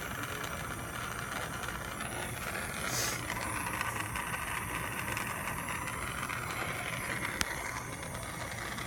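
Plumber's soldering torch burning with a steady hissing flame as copper pipe is heated to sweat a joint, with a brief flare in the hiss about three seconds in and a single sharp click near the end.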